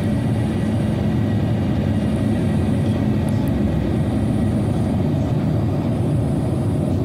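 Airbus A350 cabin noise beside the Rolls-Royce Trent XWB engine during the final moments of the landing approach, low over the runway: a steady low rumble of engine and airflow.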